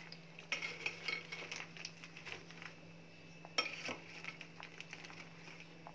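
Spoon stirring broken biscuits and chocolate sauce in a glass bowl: scattered clinks and scrapes against the glass, with a sharper knock about three and a half seconds in. A faint steady hum runs underneath.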